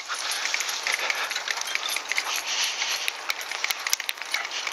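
Bicycle rolling along wet tarmac: a steady tyre hiss with frequent small metallic clinks and rattles from the bike and its fittings.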